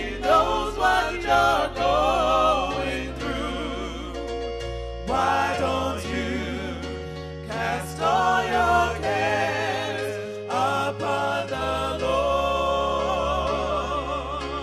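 Gospel music: singing with a wavering vibrato melody over held bass notes.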